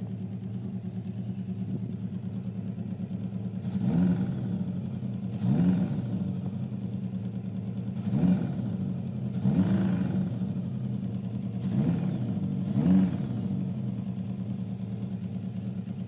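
Kawasaki ZL900 motorcycle engine idling steadily, blipped six times: short revs that rise and fall quickly, in three pairs.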